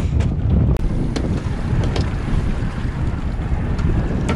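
Wind buffeting the microphone on an open boat at sea, a steady low rumble, with a few sharp knocks in the first two seconds.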